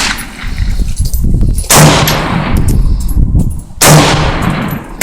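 Gunshots: two loud reports about two seconds apart, each trailing off in a long echo.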